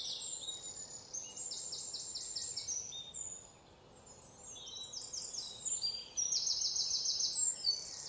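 Nature ambience of high-pitched, rapid chirping trills repeating in short runs, cutting out briefly about halfway through before fading back in.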